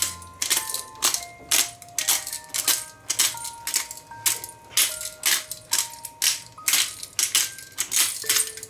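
Knife chopping on a cutting board: sharp knocks about twice a second, slightly irregular, over background music with a melody of held single notes.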